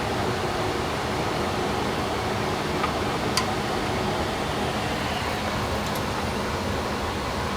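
Indoor blower of a Dave Lennox Signature Series 80% gas furnace running steadily, a constant rush of moving air: the fan still blowing after the heat cycle, before the furnace shuts off. Two faint ticks come about three seconds in.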